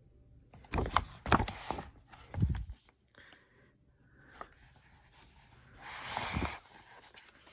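A page of a hardback picture book being turned and the book handled: paper rustling with a few sharp knocks about a second in, a soft thump a moment later, and a longer brush of paper near the end.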